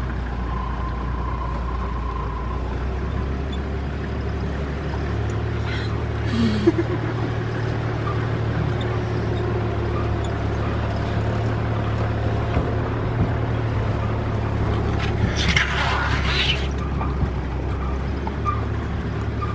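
Open safari vehicle's engine running steadily as it drives slowly along a rough bush track, its note shifting about five seconds in. Two brief rustling scrapes rise over the drone, about a third of the way in and again near the end.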